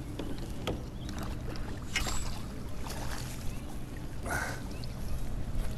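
Water rushing along a kayak in strong river current, with a few small knocks and clicks.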